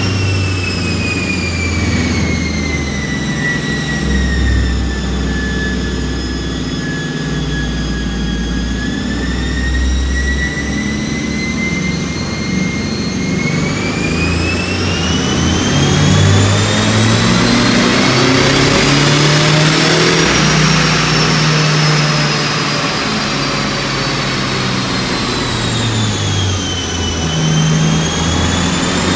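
Turbocharged Honda City i-VTEC engine running under load on a dyno during tuning, heard from inside the cabin. Its speed slowly sinks, climbs to a peak about two-thirds of the way through and sinks again before rising near the end, with a high whine that follows the speed up and down.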